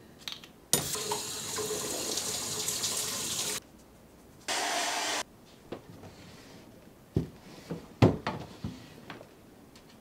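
Bathroom sink faucet running for about three seconds, then a short second run of water. Then several knocks and thuds from a wooden dresser drawer being opened and clothes pulled out, the loudest knock near the end.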